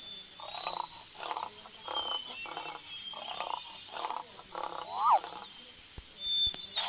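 A series of about ten short animal calls repeated roughly twice a second, with a sharp up-and-down call about five seconds in and thin high bird-like whistles.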